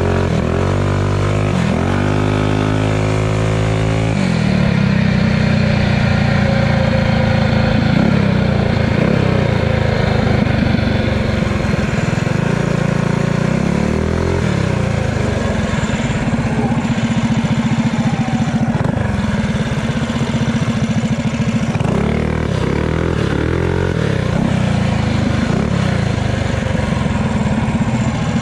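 Pit bike engine running under riding load. Its pitch rises in several quick revs in the first few seconds, holds fairly steady, then climbs again about two-thirds of the way through.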